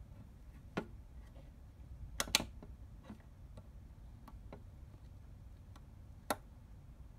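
The metal wheels of an HO-scale brass model locomotive's centipede tender click on the track as it rolls slowly by. The loudest clicks are a quick pair about two seconds in, with single ones near one, three and six seconds, over a faint steady low rumble.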